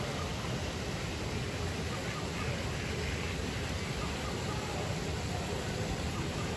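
Steady outdoor background noise with a low rumble, without distinct bird calls.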